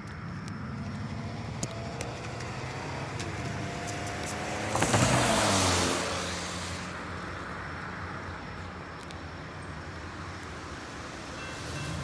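A car passes on a wet road, its tyre hiss swelling to a peak about five seconds in and fading away with a falling pitch, over a steady low hum. Near the end, the railroad crossing signal bell starts to ring.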